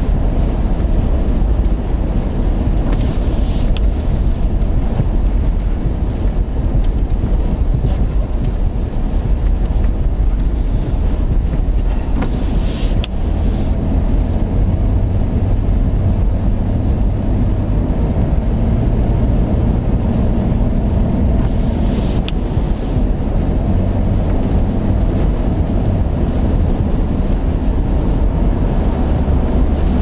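Strong blizzard wind buffeting the microphone: a loud, steady low rumble, with a brief hissing surge three times, about ten seconds apart.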